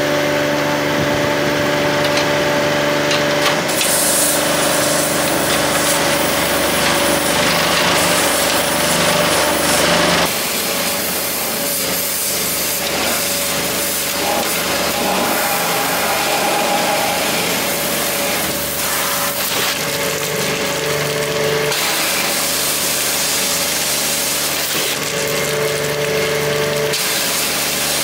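Pressure washer running with a steady hum while its high-pressure water jet blasts scale off the stay bolts inside a steam boiler's firebox water space, with water splashing and pouring out of a washout hole. The hiss of the spray shifts in tone several times.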